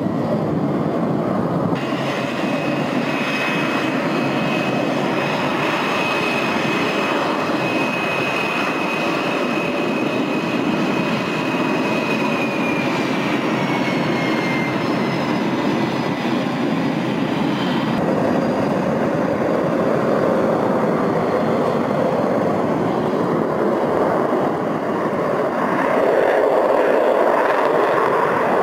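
Military fighter jets' engines during takeoffs: a steady jet roar with a high turbine whine that slides down in pitch about halfway through. The roar grows louder near the end as a jet lifts off on afterburner.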